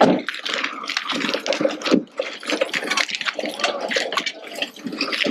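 A large woven plastic carrier bag rustling and crinkling close by as hands grab it and open it out.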